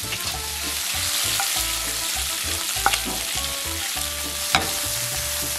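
Shrimp sizzling in olive oil and butter in a pan over medium heat, a steady frying hiss. Two sharp clicks come through, one about three seconds in and a louder one about four and a half seconds in.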